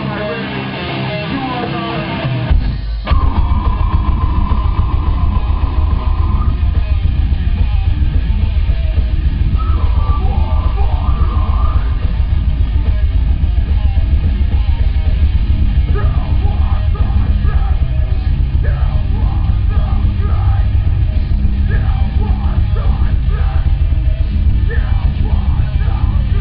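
Live heavy metal band. A guitar passage, then the full band comes in about three seconds in with heavy drums and bass, and yelled vocals join partway through.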